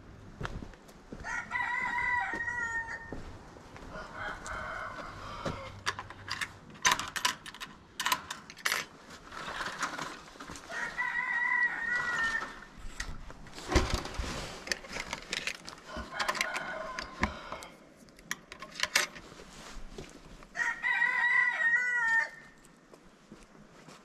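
A rooster crowing three times, about ten seconds apart, with fainter chicken calls in between. Scattered knocks and clicks run through it.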